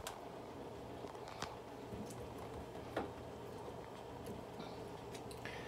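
A cat rummaging in a cabinet under a sink, among bottles and a toilet-paper roll: faint rustling with a few light ticks and knocks, three of them a little more distinct than the rest.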